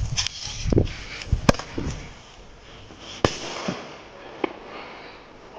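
Chinese double-bang firecracker (erti jiao) going off: a sharp bang about a second and a half in, then a second bang just under two seconds later.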